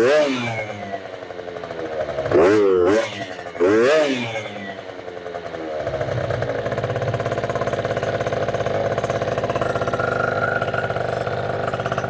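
Tuned MBK Booster scooter's 70cc two-stroke Minarelli engine revved in three short throttle blips, each note sweeping up and falling back. From about six seconds in it settles into steady, even running.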